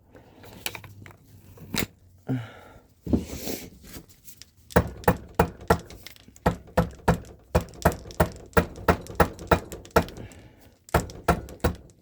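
Rapid series of sharp metal strikes, about four a second, from hammering on a stuck two-stroke cylinder to break it loose. A few scattered knocks come first, and the strikes start about a third of the way in.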